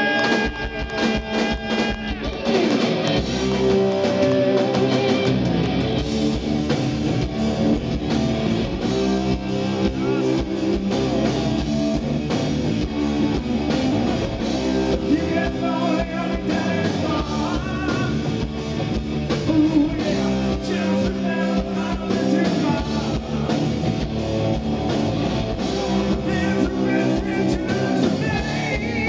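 Rock band playing live with electric guitar and drum kit. Held guitar notes at the start give way about two seconds in to the full band with driving guitar and drums.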